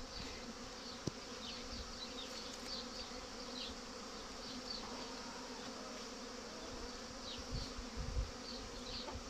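Honeybees buzzing in flight around the entrances of a row of hives: a steady, many-voiced hum of foragers coming and going, many returning with pollen.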